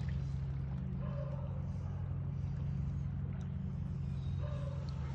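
Steady low rumble of flowing river water, with no break.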